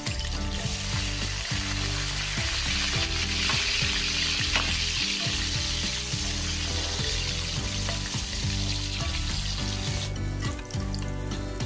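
Carrot chunks sizzling as they fry in hot oil in a wok, stirred with a wooden spatula. The sizzle drops away near the end.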